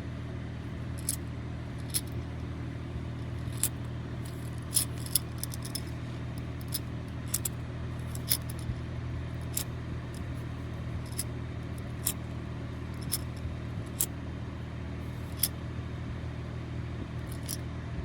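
AstroAI 12 V portable air compressor (tyre inflator) running with a steady motor hum, with scattered sharp clicks and rattles over it.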